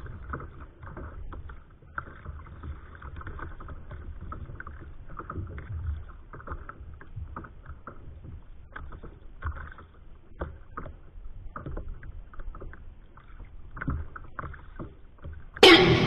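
Small waves lapping and slapping against a kayak's hull, an irregular run of light splashes and knocks. Just before the end, loud rock music with electric guitar cuts in suddenly.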